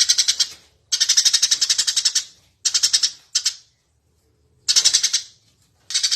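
Eurasian tree sparrow chirping hard and fast, about ten chirps a second, in half a dozen short runs with brief silent gaps between them.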